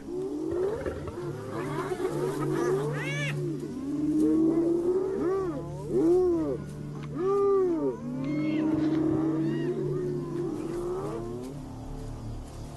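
A group of spotted hyenas calling at a kill, many overlapping calls that each rise and then fall in pitch.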